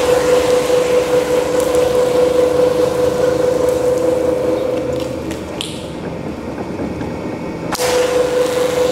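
Two-roll rubber mill running with a steady whine while rubber compound is worked on its rolls. The whine fades for a couple of seconds past the middle and comes back with a click near the end.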